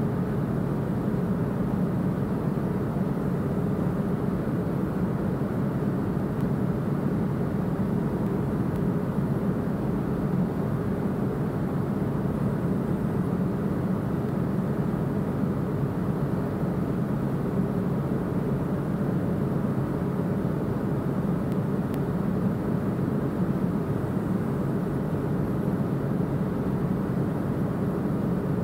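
Steady machinery drone of a ship's engine room, low and even, with the main engine running under load, its shaft turning at about 86 rpm and delivering some 4,500 kW.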